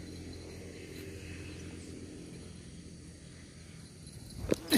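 Faint steady outdoor background, then near the end a brief, sudden whoosh and knock as a fishing rod is swung through a cast.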